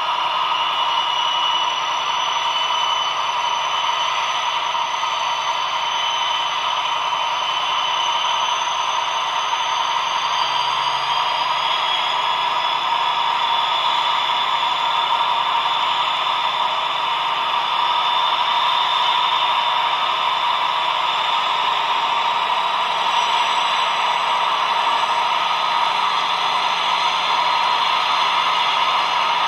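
Recorded diesel engine sound of a DB 218 locomotive's MTU TB11 V12, played through a small model-locomotive loudspeaker, running under high throttle with its pitch rising slowly over the first half and then holding steady as the engine steps through its power notches.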